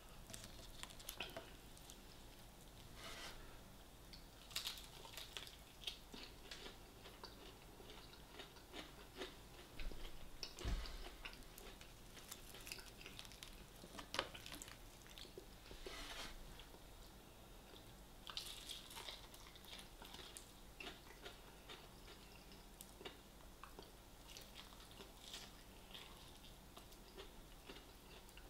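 Faint, close chewing and biting of a KFC spicy hot chicken wing, with irregular crunches and crackles of the coating and wet mouth sounds.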